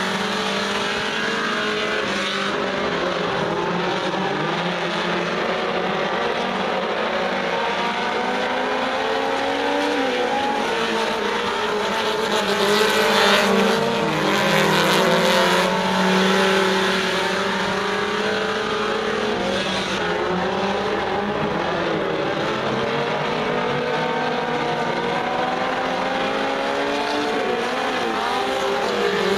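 Several four-cylinder Super Stock dirt-track race cars lapping an oval, their engines overlapping and rising and falling in pitch as they power through the turns and down the straights. The sound swells louder for a few seconds about halfway through as the pack passes close by.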